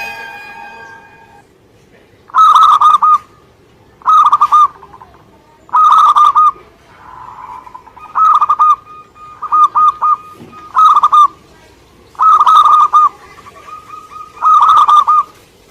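Zebra dove (perkutut) singing: eight short phrases of rapid staccato cooing notes, repeated every second and a half to two seconds.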